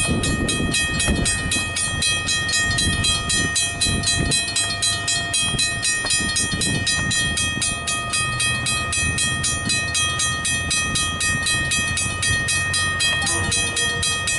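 Griswold mechanical level-crossing bells ringing steadily, struck rapidly several times a second. A low diesel engine rumble from the approaching train grows in the second half.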